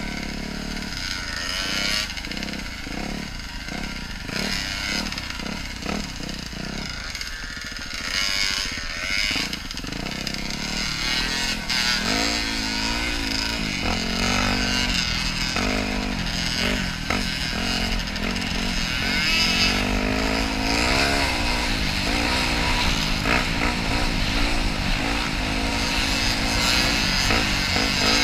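Yamaha WR250 dirt bike's single-cylinder four-stroke engine running under way, its pitch rising and falling as the throttle is opened and eased off, with wind noise over the microphone.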